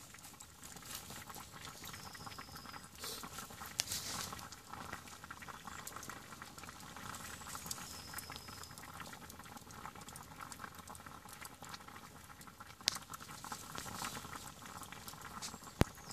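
Water boiling in a small metal pot set on campfire embers, bubbling steadily, with a few sharp pops from the fire.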